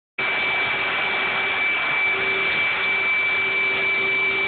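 Dog grooming blow dryer running steadily on a dog's coat: a constant rush of air with a steady high whine.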